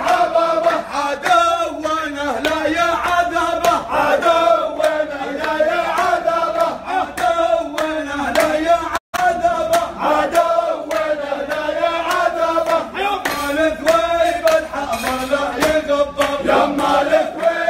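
Men singing a chant-like song together, accompanied by rhythmic hand clapping. The sound cuts out for an instant about nine seconds in.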